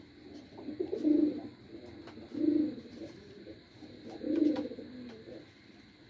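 Domestic pigeons cooing: three low coos about two seconds apart.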